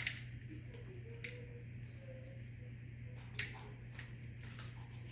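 Slime being handled and squished, giving a few short, sharp clicks and pops, the loudest about three and a half seconds in, over a steady low hum.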